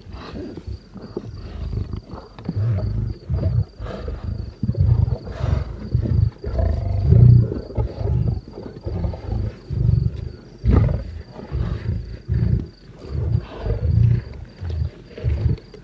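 Lions growling while feeding on a wildebeest carcass: a string of low, rumbling growls, each about half a second to a second long, one after another.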